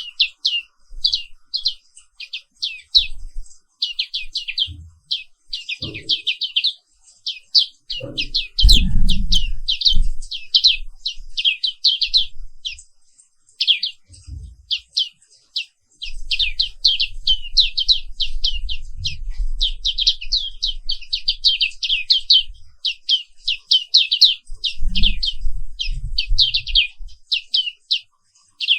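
A pleci papua white-eye singing a fast, unbroken run of short, high, downward-sweeping chirps, several a second, with a brief pause about halfway through. Low rumbling thuds sit underneath at times, loudest about nine seconds in.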